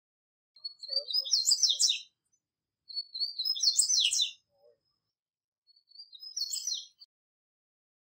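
Male double-collared seedeater (coleiro, papa-capim) singing: three phrases of fast, high twittering notes, each a little over a second long, with short pauses between.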